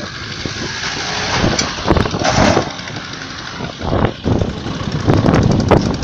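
Road traffic going by close at hand: cars and a truck driving past on the highway. The noise swells about two seconds in, eases, then grows louder again near the end.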